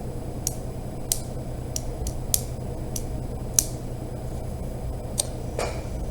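A handful of short, sharp clicks at irregular intervals, about one a second, over a steady low hum.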